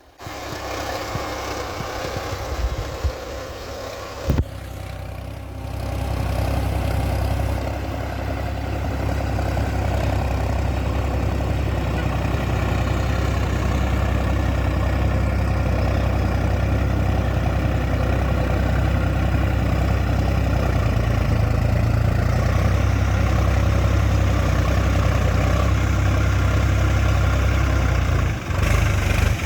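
Tractor engine running steadily at a low rumble, with a sharp knock about four seconds in, and running louder from about six seconds in.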